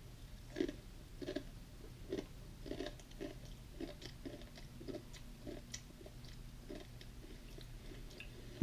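A person chewing crunchy tortilla chips (Doritos) with the mouth near the microphone, a steady run of crunches at about one and a half a second.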